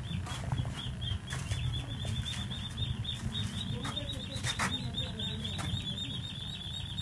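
A small bird chirping rapidly and steadily in high short notes, about five a second, over a low steady rumble. A few clicks come around the middle.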